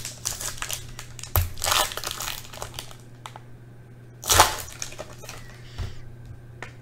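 Foil wrapper of a Panini Prizm basketball card pack being torn open and crinkled in the hands, in several bursts of rustling, the loudest a little over four seconds in.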